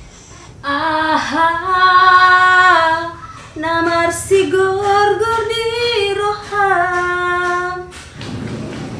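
A female voice singing a slow melody in long held notes. It begins just under a second in, breaks briefly about three seconds in, and stops about eight seconds in.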